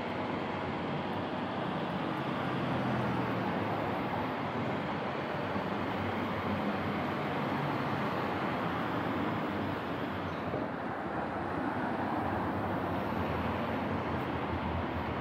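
Street traffic noise: cars driving along the road, an even rumble and hiss.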